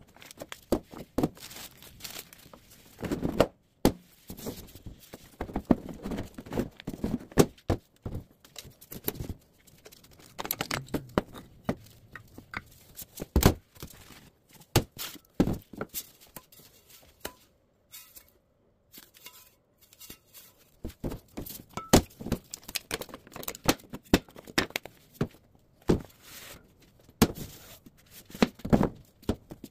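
Handling noise from unpacking a wooden ammunition crate: repeated knocks and thunks of wooden spacers and cylindrical cases being lifted out and set on a table, with paper rustling and tearing between them. The knocks come irregularly, with a quieter spell a little past the middle.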